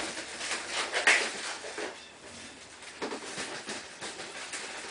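Handling noises as a dryer vent duct is slid and pushed into a cat carrier: a run of scrapes, rustles and knocks, loudest at the start and about a second in, with another cluster about three seconds in.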